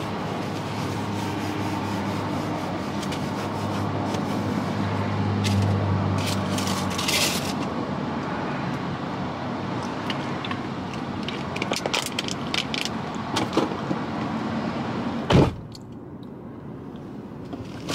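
Car interior noise: the engine running with a steady low hum, joined by scattered clicks and rustling. A sharp thump about fifteen seconds in, after which it is quieter.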